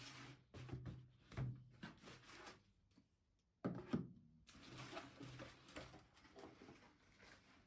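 Quiet household handling sounds: scattered light knocks and rustles, with a louder knock and clatter about three and a half seconds in.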